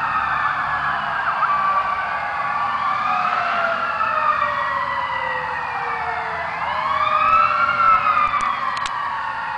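Fire truck sirens wailing, several slow rising and falling tones overlapping one another, loudest about three-quarters of the way through.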